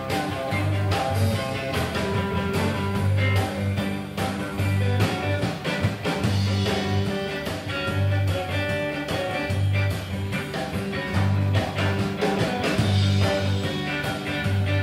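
Live rock-and-roll band playing an instrumental section with no singing: electric guitar and electric bass over a drum kit, the bass notes repeating in a steady pattern.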